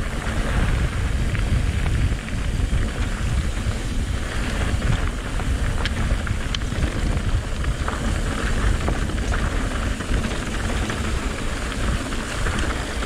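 Mountain bike coasting downhill on a dirt trail: wind buffeting the microphone over the rolling of the tyres, with a few sharp clicks from the bike.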